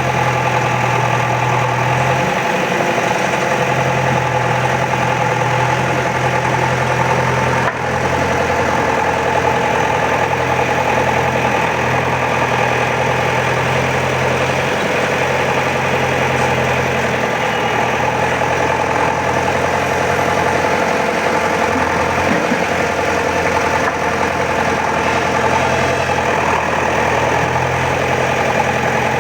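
Diesel engine of an earthmoving machine at a soil excavation, running steadily with a low, even hum.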